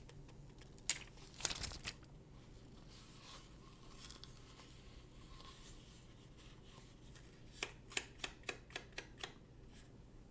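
Apple TV packaging being handled during unboxing: a brief rustle of paper or plastic in the first two seconds, then a quick run of about seven sharp clicks or taps near the end, about four a second.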